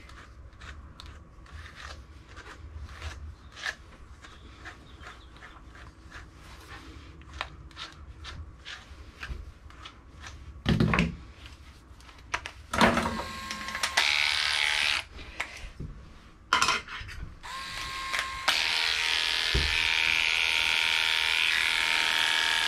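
Light repeated strokes of a slicker brush through a dog's coat, then an electric dog grooming clipper running in short bursts and, for the last few seconds, running steadily.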